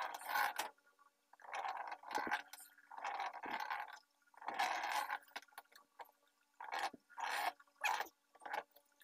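A cloth pad scrubbed back and forth over the wet glass of an LCD TV panel, taking off the residue of its burnt polarizer film: about seven rubbing strokes, each under a second, with short pauses between.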